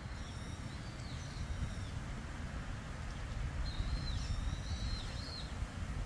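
Wind rumbling on the microphone, with a small bird giving two short high, gliding call phrases, the second starting a little past three and a half seconds in.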